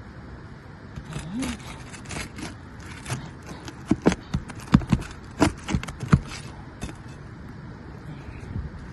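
A metal tool working under old asphalt roof shingles to get the nails out. Sharp clicks and knocks come in a quick cluster of about eight in the middle, with lighter scraping and ticking around them.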